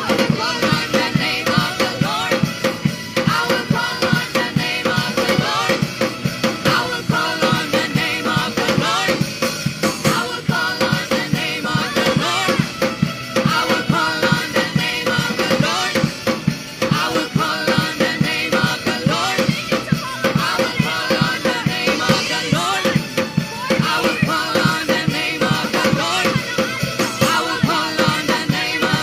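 Live worship band music driven by a busy drum kit beat, with voices singing over it.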